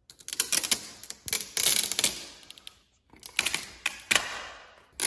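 Protective plastic film being peeled off the edge of a TV screen by hand: a crackling, ripping rustle with clicks, in three pulls.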